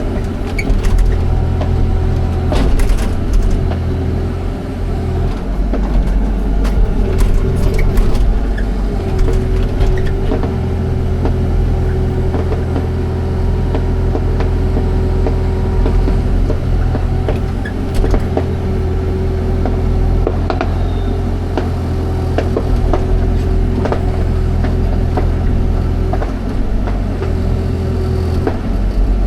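Excavator's diesel engine running steadily, its note shifting about six to nine seconds in and again near the end. Sharp clanks and knocks in the first eight seconds or so.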